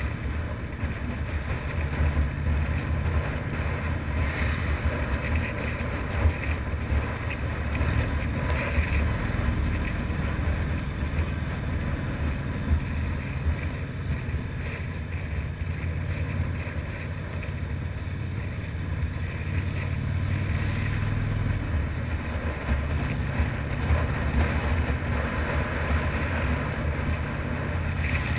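Harley-Davidson FXRDI V-twin engine running steadily as the motorcycle rides along a village road, with wind noise on the microphone.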